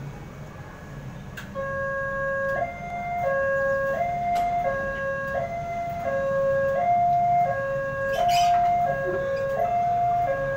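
Railway level-crossing warning alarm starting about a second and a half in: an electronic two-tone signal switching back and forth between a lower and a higher note, each held under a second, warning of an approaching train. Road traffic hums underneath.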